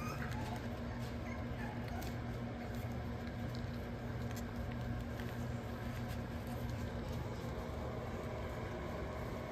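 Steady whirring hum of a plugged-in space heater's fan running, with faint small clicks and rustles over it.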